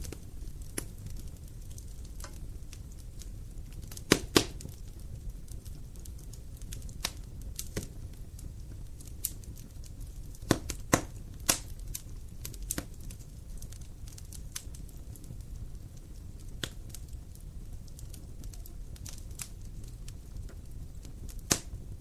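Wood fire crackling: a steady low rumble with irregular sharp pops and snaps, the loudest clusters about four seconds in, around eleven seconds in, and just before the end.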